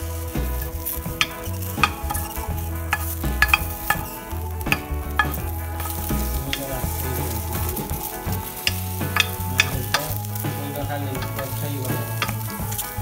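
Chopped amaranth leaves, spring onion and garlic sizzling in a frying pan while being stirred, with scattered sharp knocks of the spoon against the pan.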